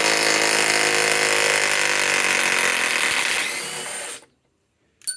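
DeWalt Atomic DCF921 compact 1/2-inch cordless impact wrench hammering steadily as it runs a 5-inch lag screw. It stops about four seconds in, followed by a brief metallic clink near the end.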